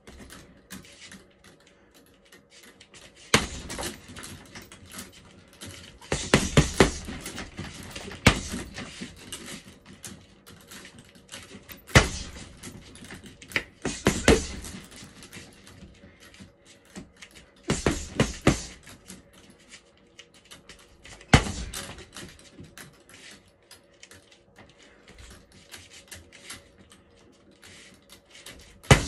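Boxing-glove punches and kicks landing on a hanging Outslayer heavy bag: hard thuds, some single and some in quick flurries of two to four, every few seconds, with fainter knocks between.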